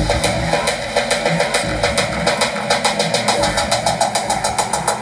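Music with a drum beat played through a three-way horn-loaded PA loudspeaker, the BOSA RES2; the percussive hits come faster and faster, building into a quick roll.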